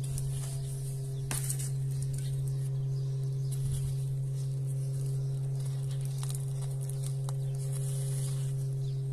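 Gritty potting mix of soil and perlite being scooped with a metal trowel, trickled into a small plastic pot and pressed down by hand: light scraping and rustling with small ticks, and one sharp click about a second in. A steady low hum runs underneath.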